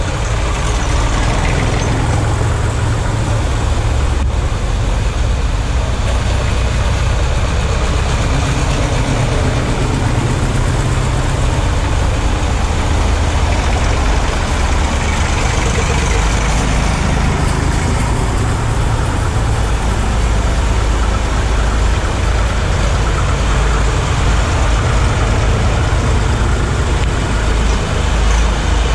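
Vintage tractor engines running at low speed as the tractors pass one after another through a shallow ford, with water rushing and splashing around the wheels.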